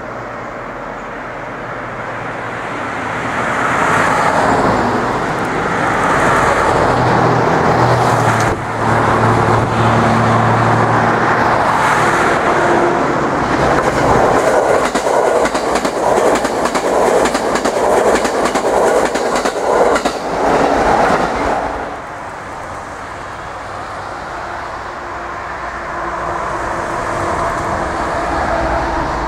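Electric train passing over a level crossing: a rumble builds, then a long run of rapid clickety-clack as the wheels cross rail joints. The noise drops off abruptly about two-thirds of the way through, leaving a quieter steady rumble.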